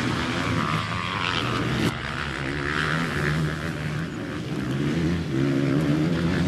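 Motocross motorcycle engines running and revving on a dirt track, the pitch rising and falling. The sound shifts abruptly about two seconds in.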